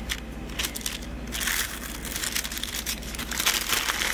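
Wax paper crinkling and crackling as it is peeled up by hand from cured epoxy on fiberglass, in many small irregular crackles.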